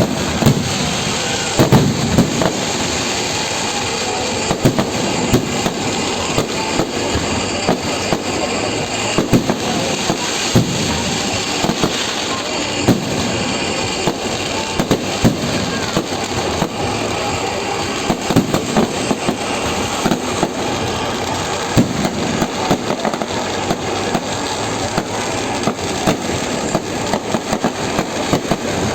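Fireworks display: a dense, continuous run of crackles and bangs, with louder reports scattered throughout.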